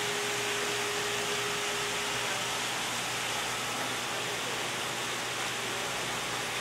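Steady rushing noise with no breaks, like running water or moving air, and a faint steady hum that stops about two seconds in.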